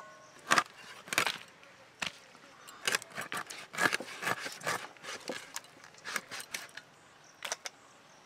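A bonti cutting through tough black pomfret fish and its bones: irregular sharp cracks and cuts, about a dozen, as the pieces are forced through the blade.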